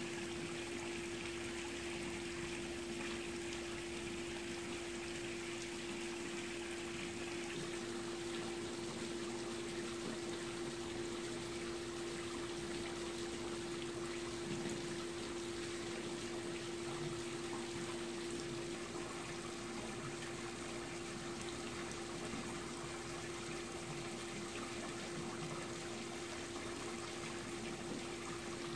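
Steady trickle of running water, likely from a backyard swimming pool, with a constant low hum underneath.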